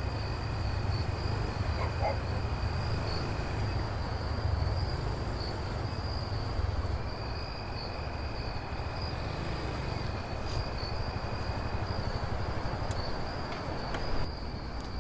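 Crickets trilling steadily, with a second, lower insect trill coming and going, over a low rumble that fades about nine seconds in.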